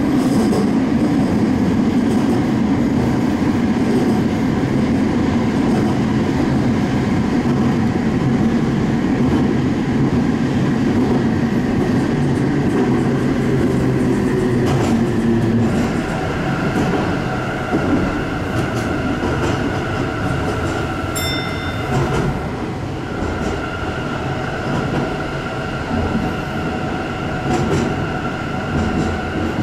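Sendai Subway Tozai Line 2000 series linear-motor train running through the tunnel: a steady rumble of running gear, joined about halfway by a steady whine while the rumble eases. A brief high beep sounds about two-thirds in.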